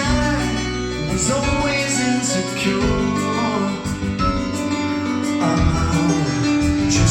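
A recorded song led by strummed acoustic guitar, with a singing voice, played back through Tannoy loudspeakers.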